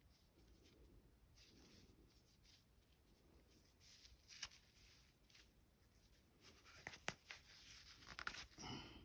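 Near silence with faint rubbing and a few light clicks, from pistol parts being wiped and handled during cleaning; one sharper click about seven seconds in.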